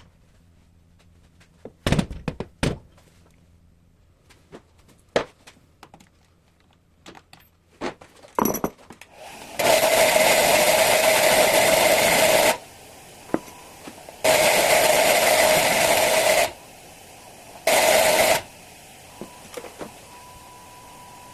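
Scattered clicks and knocks of tools on metal parts, then a power tool running loudly in three bursts: about three seconds, two seconds, then under a second.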